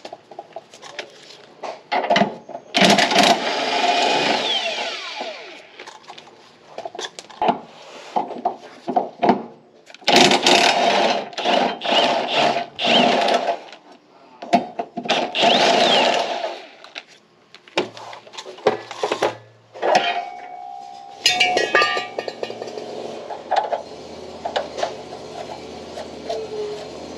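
Cordless impact wrench hammering in several bursts of one to three seconds on the rear subframe bracket nuts, with short metal clinks between bursts. In the last third a lawn mower runs steadily in the background.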